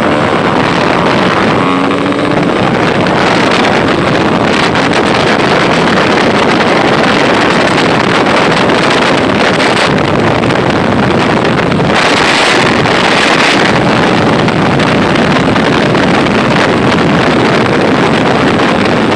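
Motorcycle ridden at highway speed, filmed from the bike: a steady heavy rush of wind on the microphone over the drone of the Bajaj Pulsar RS 200's single-cylinder engine, with a brief louder hiss about twelve seconds in.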